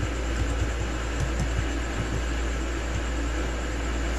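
Soft key clicks of typing on a compact wireless keyboard, with a few scattered taps over a steady low hum that is the loudest thing heard.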